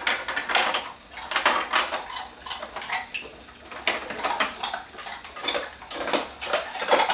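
Refrigerator-door ice dispenser releasing ice cubes as a Great Dane presses its lever with her head: an irregular clatter of cubes knocking against the chute and each other, several clicks a second, with a louder clatter near the end.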